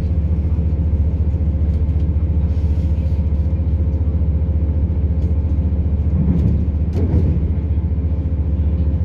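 Interior of a Class 170 Turbostar diesel multiple unit while running: a steady low drone from its underfloor MTU diesel engine, mixed with wheel-on-rail rumble. A few light clicks come through, and there is a brief louder rattle about seven seconds in.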